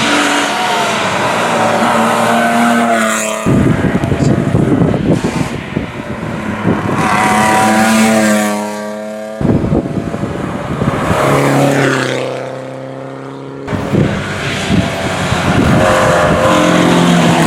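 Rally cars driven hard on a stage, their engines revving high and falling away between gear changes as they pass. The sound cuts abruptly between several short clips, about three times.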